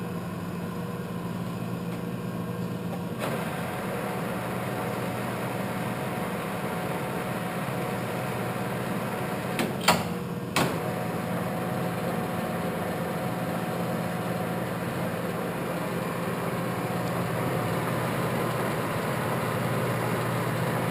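Clausing Colchester geared-head lathe running, a steady gear-and-motor hum that grows louder and fuller about three seconds in. A couple of sharp clicks or knocks come near the middle.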